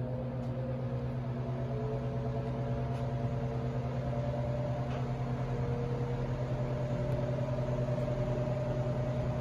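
Condenser fan from a 1980s Lennox heat pump running steadily: a strong low motor hum under the rush of air from the spinning blades, with faint higher tones that drift slowly upward.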